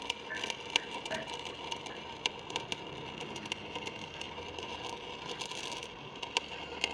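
Scattered light clicks and taps at irregular intervals over a faint steady hum.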